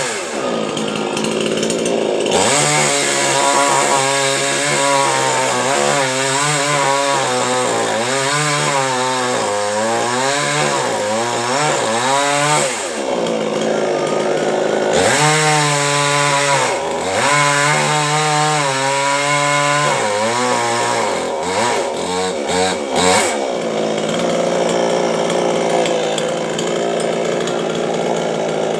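Chainsaw cutting coconut palm wood, its engine pitch rising and falling under load in two long stretches, with steadier running between and after.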